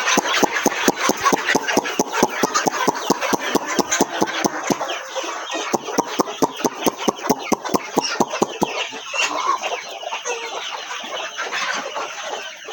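A flock of local hens clucking and calling together, over a fast run of sharp taps, about five a second, that stops about nine seconds in.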